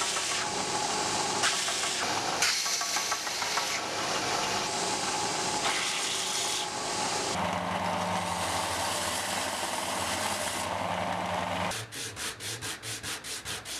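Belt sander running with a small olive-wood block pressed against the moving abrasive belt: a steady sanding hiss that swells and eases as the wood is pressed on. About twelve seconds in it gives way to a quick, even run of hand-file strokes on the wood, several a second.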